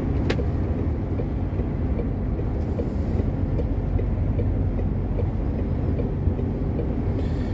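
Heavy truck heard from inside the cab while driving: a steady low engine and road rumble, with one short click just after the start.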